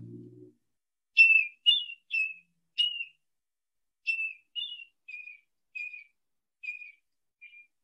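Recorded marbled murrelet calls: short, high 'keer' notes like a gull's, four in quick succession, a short pause, then about six more that grow fainter.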